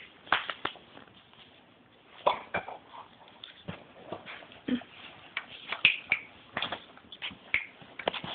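Two dogs nuzzling and playing at close range, making short, irregular snuffles and brief whimpers.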